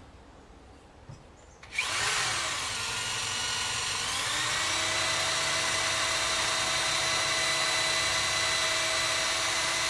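Corded electric drill boring into hardwood: after a short quiet spell it starts about two seconds in, its motor whine rising over a couple of seconds, then running steadily at full speed.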